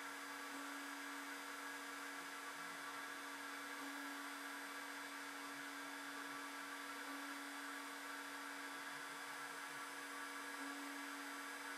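Faint, steady hum and whir of a small CNC mill's spindle running a drilling program on a copper-clad circuit board.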